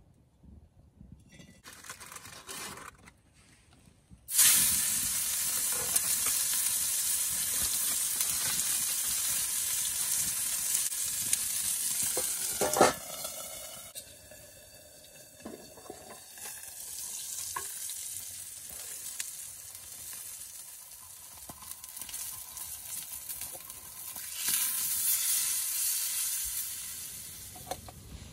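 Food sizzling in a hot pan on a campfire grill, starting suddenly and loudly about four seconds in. There is a metal clank about halfway, and after it the sizzle is quieter, with the pan covered. The sizzle swells again near the end.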